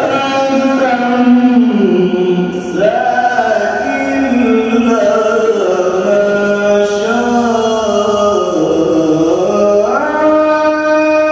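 A male qari reciting the Quran in melodic tajweed: long, drawn-out sung notes that slide and waver in pitch, climbing sharply near the end.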